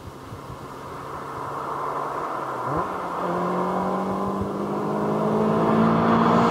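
A Caterham Seven sports car approaching, its engine note rising in pitch and growing steadily louder as it accelerates, with a sudden jump up in engine pitch about three seconds in.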